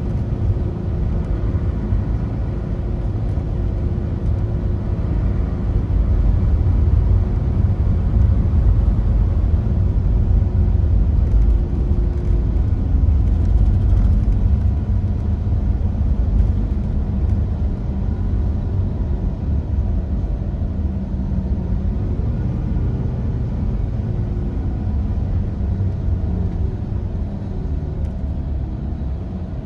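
Cabin noise of a Mercedes-Benz Tourismo diesel coach on the move: steady low engine and road rumble, dropping a little near the end as the coach slows for a bend.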